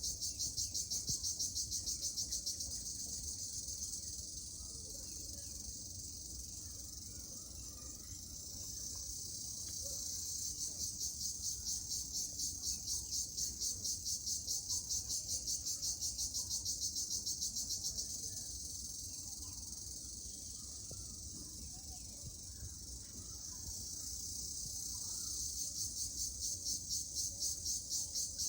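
Cricket singing: a high-pitched song of rapid, evenly spaced pulses, about five a second, that eases into a softer continuous trill for several seconds, pulses loudly again from about ten seconds in, softens once more, and picks up again near the end.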